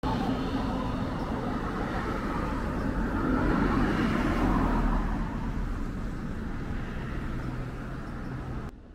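Road traffic: vehicles running past, swelling louder about three to five seconds in and then easing off, cut off suddenly near the end.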